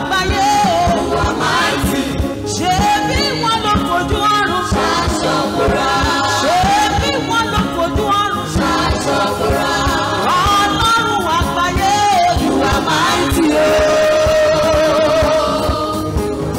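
Gospel praise music: voices singing over instruments with a steady beat.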